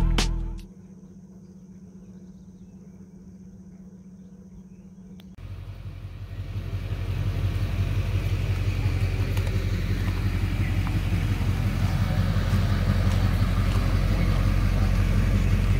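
Vehicle engine idling: a steady low rumble with even rapid pulses that comes in abruptly about five seconds in and swells for a couple of seconds before holding steady. Before it there are a few seconds of faint steady hum.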